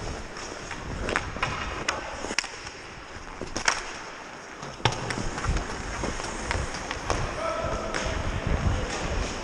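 Ice hockey skates scraping and carving on the ice, heard close from a helmet-mounted camera with a rumble of wind noise. Several sharp clacks of hockey sticks and puck cut through it.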